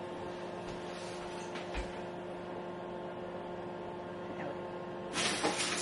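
Steady hum of a kitchen appliance, made of several even tones. About five seconds in, a sudden rush of hiss-like noise starts over it.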